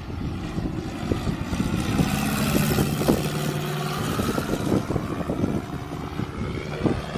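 Cessna 152's four-cylinder Lycoming engine and propeller droning as the plane flies low overhead. The engine's pitch falls as it passes by, about three to four seconds in.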